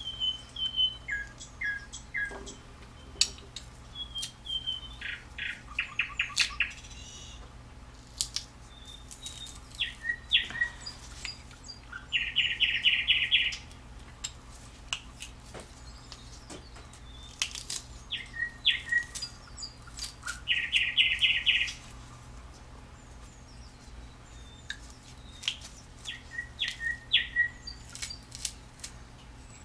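A songbird chirping and trilling, in short whistled notes and fast rapid-fire trills that come back in similar phrases every several seconds, mixed with sharp clicks.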